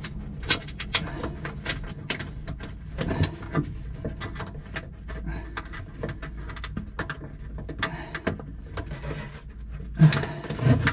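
Scattered small clicks, taps and rattles of metal parts and hand tools being handled by feel while fitting a fuel shutoff valve's linkage in a cramped space, over a steady low hum, with a louder knock near the end.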